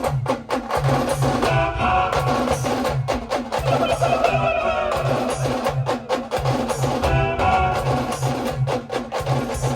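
Live band music from a village band party: a fast, steady drum beat with sharp percussion strokes and a melody line over it.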